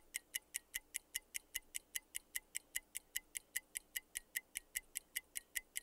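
Clock-like ticking sound effect of a quiz countdown timer, steady at about five ticks a second.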